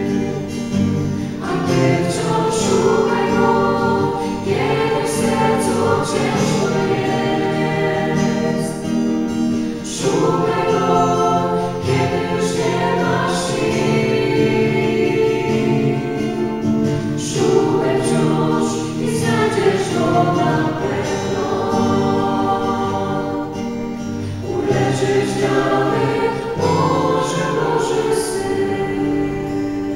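A small mixed vocal group of men and women singing a Christian worship song together in harmony into microphones, with long held notes.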